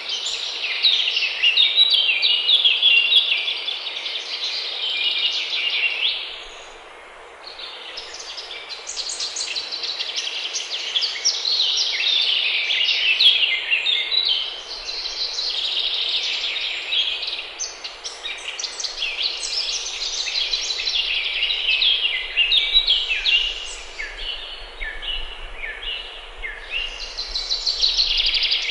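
Forest birds singing, several songs overlapping almost without a break and easing off briefly about a quarter of the way through, over a steady background hiss.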